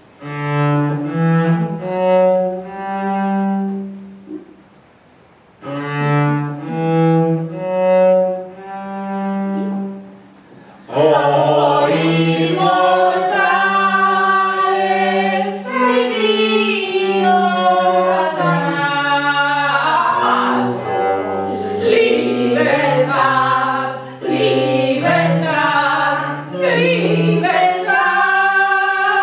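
A cello plays two short solo phrases of held, bowed notes with a brief pause between them. About 11 seconds in, singing voices come in, and the song carries on with cello accompaniment.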